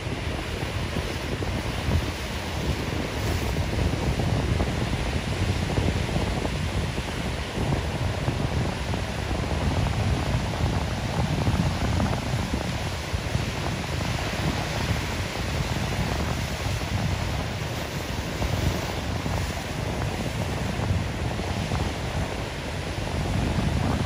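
Ocean surf breaking and washing in against a rock jetty, a continuous rushing wash of whitewater.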